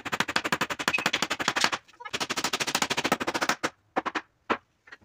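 A handheld power tool driving into the wooden frame with a fast rattle of sharp clicks, about seventeen a second, in two bursts. The first lasts nearly two seconds and the second about a second and a half; a few single knocks follow.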